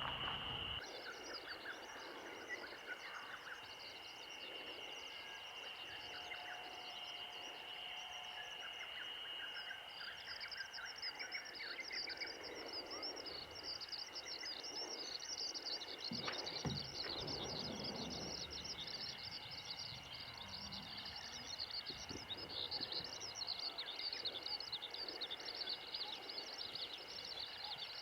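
Outdoor nature ambience: birds chirping in quick, dense runs that get busier about a third of the way in, over a steady high-pitched tone, with a few dull low knocks a little past the middle.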